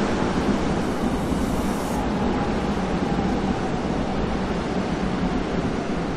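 Korail commuter electric multiple-unit train running past close by: a steady, loud rumble of wheels on rail, with a faint steady whine midway.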